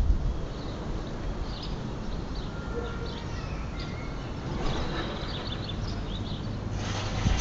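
Small birds chirping now and then in short high calls over a steady low rumble of outdoor city background, which swells into a louder hiss near the end.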